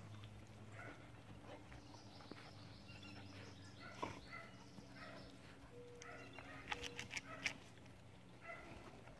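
Quiet outdoor ambience: a steady low hum with a few faint short chirps and scattered light clicks and scuffles, as puppies play in the grass.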